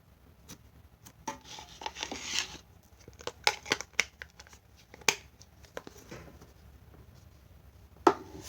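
Glittery slime being squished and stretched by hand: a crinkly, crackling stretch about a second in, then scattered sharp popping clicks.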